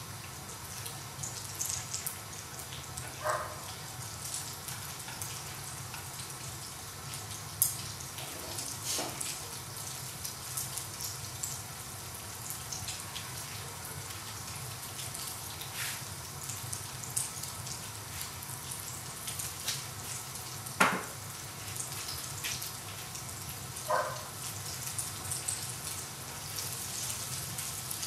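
Eggs in tomato sauce frying in a pan, a steady sizzle with fine crackling. A few sharp clicks and knocks stand out, the loudest about two-thirds of the way through.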